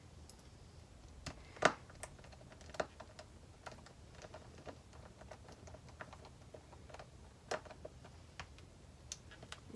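Faint, irregular clicks and ticks of a small screwdriver and screw against the metal plates of a screw-together oblong grommet as a screw is driven in by hand, with a sharper click about a second and a half in.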